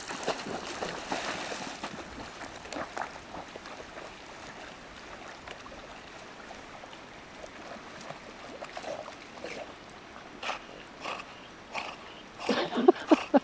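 Creek water rushing and splashing, busiest in the first few seconds, then a steadier flow broken by a few short sharp sounds and a louder burst near the end.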